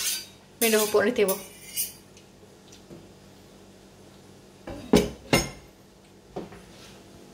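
Knife and fork clinking and knocking against a wooden cutting board while cutting steak: a quick cluster of sharp knocks about five seconds in, and one more a second later.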